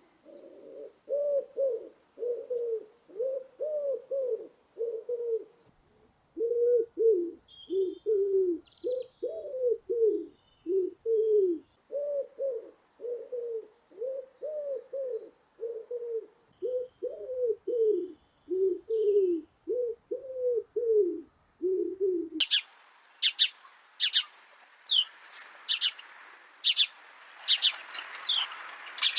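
Pigeon cooing: a long run of short, arching low coos, about two a second, with a brief pause about six seconds in. About 22 seconds in it cuts abruptly to rapid, high-pitched bird chirps over a faint hiss.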